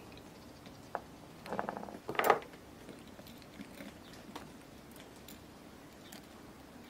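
Tiny steering parts of a 1/64 diecast car being fitted back together by hand: a click about a second in, a brief rustle, then a sharp clack a little after two seconds, followed by a few faint ticks.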